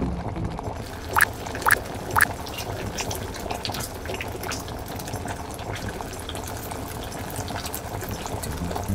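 Thick rosé tteokbokki sauce bubbling at a simmer in a frying pan, with small pops throughout. Three short rising bloops come between one and two seconds in.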